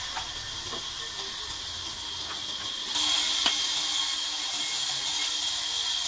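Sawmill machinery running: a steady hiss with a high-pitched whine, growing louder about three seconds in, with a few faint clicks.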